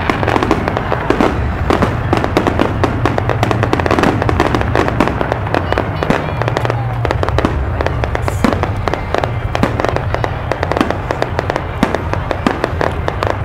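Aerial fireworks bursting: a rapid, continuous crackle of sharp pops and bangs over a steady low rumble.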